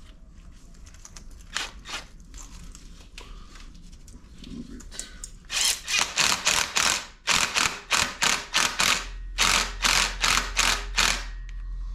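Hand ratchet worked in quick back-and-forth strokes, a run of short rasping bursts about three a second that starts about halfway through, after a few faint clicks.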